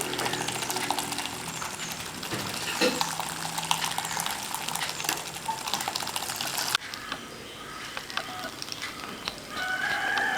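Homemade electric egg beater whisking egg whites in a bowl toward a creamy foam: a steady whisking, splashing noise with rapid small clicks that cuts off suddenly about two-thirds of the way through.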